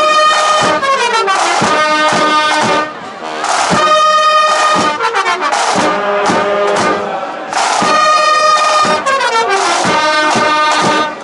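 Marching brass band of trombones, trumpets and tuba playing loudly, with a held chord about every four seconds and falling runs of notes between them.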